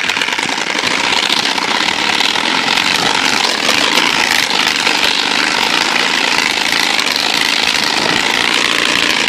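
Trail motorcycle running steadily while being ridden downhill, its engine blended with a loud, even rush of wind and road noise.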